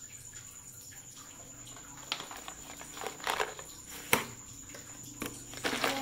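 Rose-ringed parakeet's beak pecking at and knocking a hard seed against a tiled floor: a few short, sharp clicks from about two seconds in, the sharpest one about four seconds in and a quick cluster near the end.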